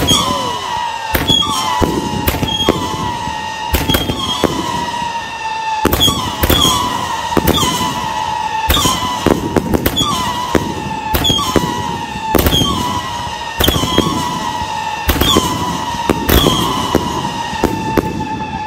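A fireworks battery firing a run of whistling shots, about one a second. Each shot is a sharp bang followed by a high whistle that drops slightly in pitch and then holds until the next shot.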